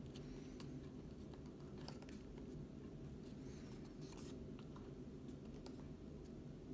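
Faint handling of a small paperboard box: scattered light clicks and rustles as its flaps are opened and it is turned in the hands, over a steady low room hum.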